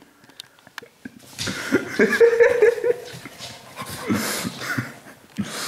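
A black Labrador puppy licking and snuffling at a woman's face while she laughs, starting about a second in after a few soft clicks.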